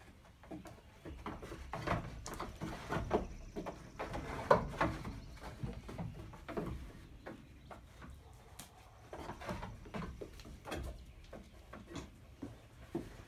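Small hooves of goat kids tapping and knocking on a wooden plank ramp: irregular, uneven footfalls on wood, with the loudest knock about four and a half seconds in.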